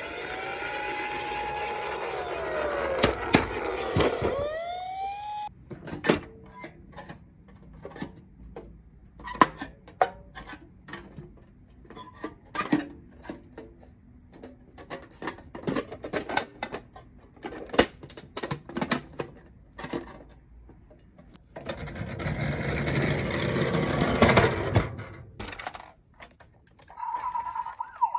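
Emergency-vehicle siren wailing up and down for the first five seconds or so, then scattered clicks and knocks, a few seconds of rushing noise past the middle, and a steady siren tone starting again near the end.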